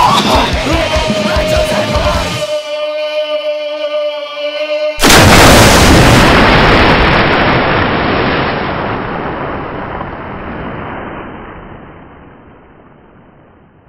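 Soundtrack music ending on a long held note, then about five seconds in a sudden loud boom-like crash that fades away slowly over the following seconds.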